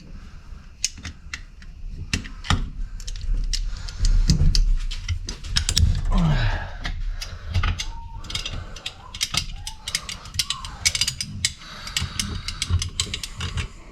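Hand tools clicking and knocking on the metal of a tractor hydraulic auxiliary valve being taken apart: many sharp clicks throughout, with heavier thumps about four to six seconds in.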